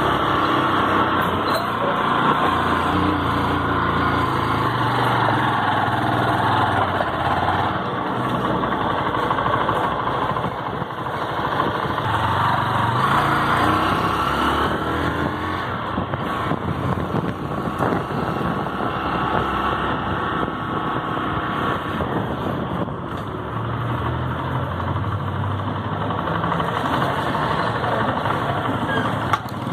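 A vehicle engine running under way, with its pitch rising and falling, mixed with steady road and wind noise.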